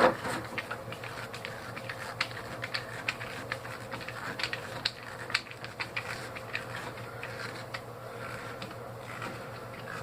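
Irregular small metal clicks and clinks of hand tools working fasteners out of a small air compressor's piston pump, done by hand with some effort.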